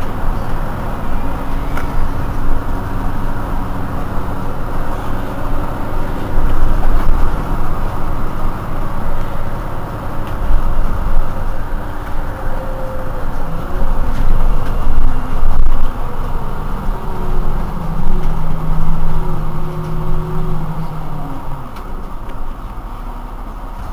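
Mercedes-Benz Citaro C2 city bus standing at a stop with its engine idling: a steady low rumble, with a few tones shifting in pitch partway through. It gets quieter near the end.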